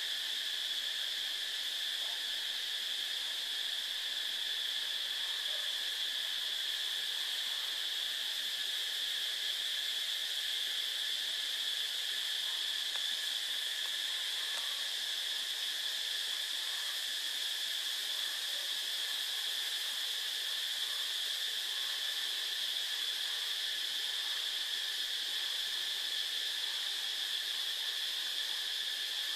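A steady high-pitched drone that stays unbroken and unchanged throughout.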